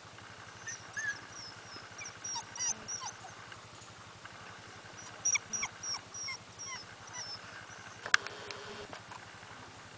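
A herding-dog puppy yipping in two runs of short, high-pitched yelps, a few seconds apart. A single sharp click with a brief ringing tone comes near the end.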